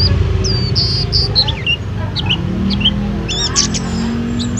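White-eye (pleci) singing a rapid string of short, high chirps and trilled notes, over a low steady background rumble.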